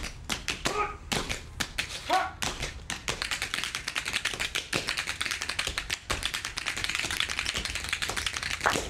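Tap dancers' metal taps striking the floor in quick, sharp strikes. The strikes are spaced for the first few seconds, then turn into a dense, fast stream from about three seconds in.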